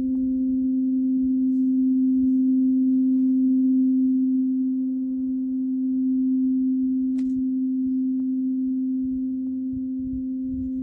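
Large steel tuning fork ringing with one steady low tone and a fainter overtone an octave above. The sound swells and eases gently in loudness.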